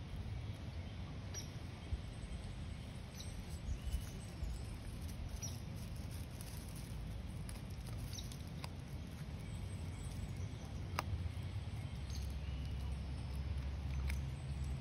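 A long-haired dachshund chewing a treat and nosing in dry pine straw: irregular faint clicks and crackles over a low steady rumble. There are a few faint bird chirps.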